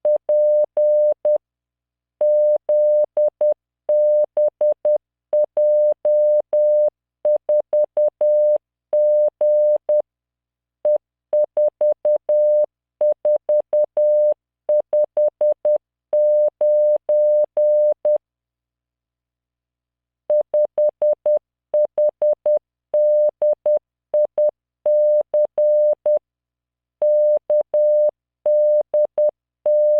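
Morse code sent by computer at 10 words per minute: a pure 600 Hz tone keyed on and off in dots and dashes, spelling random five-character groups of letters and figures for copying practice, with brief pauses between groups.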